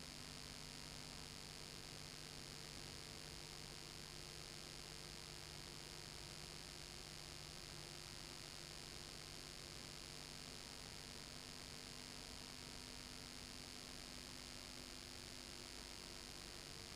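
Faint steady electrical hum over hiss, with no other sound: the background noise of a silent home-movie film transfer. A few fainter, higher hum tones fade out for a few seconds in the middle and come back.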